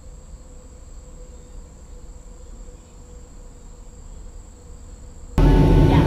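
A steady, high-pitched insect trill over a low rumble. About five and a half seconds in it cuts abruptly to the much louder, steady drone of an airliner cabin in flight, with the jet engines running.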